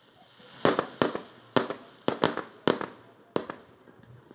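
Aerial fireworks bursting overhead: about seven sharp bangs at uneven intervals, each trailing off briefly.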